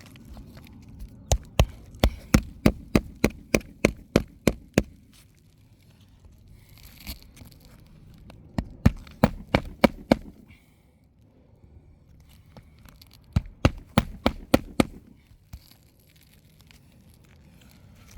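Three quick runs of sharp hammer blows, about four a second, with brief pauses between the runs, as staples are worked loose while old asphalt shingles are taken off a roof.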